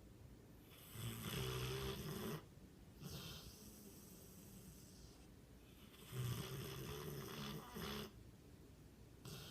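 Mastiff snoring in its sleep: two long snores about five seconds apart, each followed by a shorter, quieter breath.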